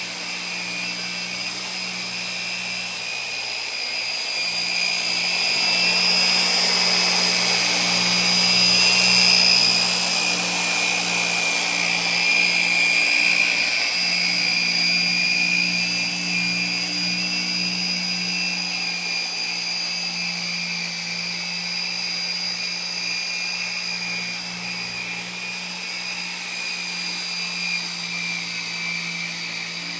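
Dual-action orbital polisher running at about 5,000 oscillations per minute, a medium foam pad working cutting compound into oxidised boat gelcoat: a steady motor whine and hum. It grows louder a few seconds in, peaks near the middle and then slowly eases off.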